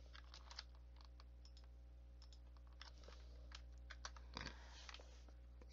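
Faint, scattered clicks of a computer mouse and keyboard, a few small clicks a second at irregular spacing, over a steady low electrical hum.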